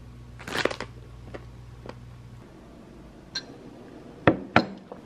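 A drinking glass of iced matcha clinking twice in quick succession, sharp and short, a little past four seconds in. Before it, a brief crackle about half a second in and a few faint ticks.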